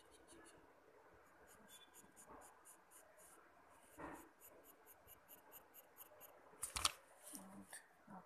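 Faint pencil scratching on paper in quick short strokes, about four or five a second, as a sketch outline is drawn. A sharp knock sounds near the end.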